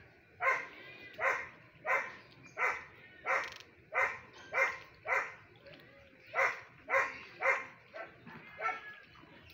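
An animal giving a steady series of short, sharp calls, roughly one every two-thirds of a second, with a brief pause a little past the middle.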